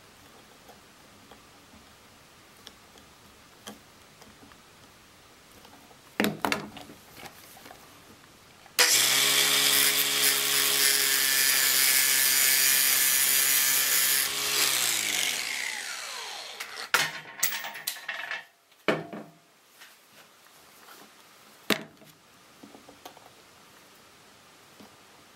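Angle grinder with an abrasive cut-off disc starting suddenly about nine seconds in, cutting through a bundle of stranded copper wire for about five seconds, then winding down with falling pitch. Before and after, knocks and clicks of steel pliers and the copper cable being handled on the bench.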